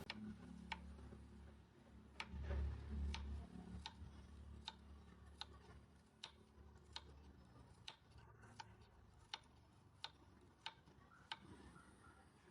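Faint, regular sharp ticks, about four every three seconds, over a low rumble that fades after the first few seconds.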